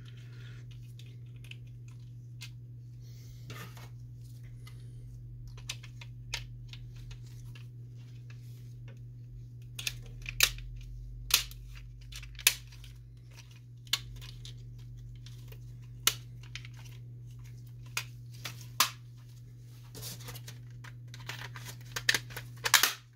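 Scattered clicks and taps of plastic printer parts being handled as the control panel is worked loose, over a steady low hum. A denser run of rattling comes near the end.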